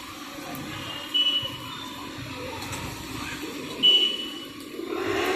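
Paratha frying on a large flat iron tawa as a metal spatula and wooden stick press and move it, with a steady hiss underneath. Two short, high-pitched tones stand out, about a second in and again near four seconds.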